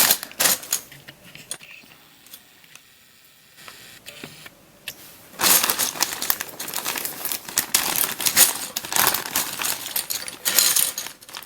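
Small hard plastic parts of a DIY 3x3 speed-cube kit being handled: a few sharp clicks, then from about five seconds in a dense, continuous clatter and rattle of loose pieces and packaging.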